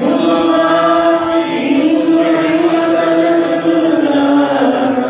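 Liturgical chant sung on long, held notes, the response that follows the announcement of the Gospel; the pitch steps down slightly about four seconds in.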